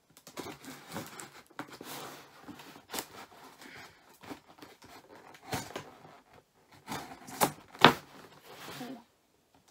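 Packing tape being picked at and torn from a cardboard box, with rustling and scraping of the cardboard and several short sharp rips, the loudest two close together about three quarters of the way through.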